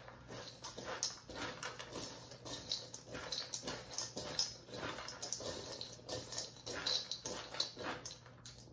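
Oiled, seasoned pumpkin seeds being stirred with a spatula in a stainless steel mixing bowl: repeated scraping and rustling strokes, a stroke or two each second.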